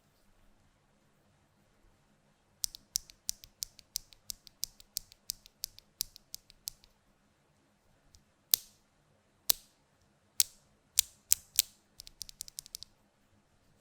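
Mechanical keyboard with DM Nezuko switches and GMK keycaps being typed on. A quick run of crisp key clicks starts a few seconds in, followed by a handful of louder single keystrokes about a second apart and a short fast flurry of keys near the end.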